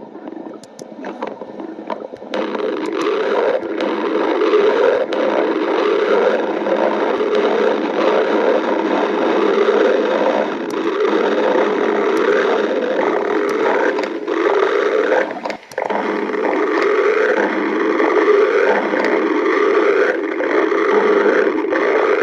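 Stomach growling: a long, loud, continuous gurgling rumble that swells after about two seconds and breaks off briefly about two-thirds of the way through before carrying on.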